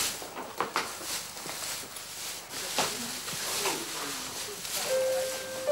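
Rustling straw and scattered knocks from a plastic dog transport crate as a dog is let out into a straw-bedded pen, with faint voices in the background. A steady music note comes in near the end.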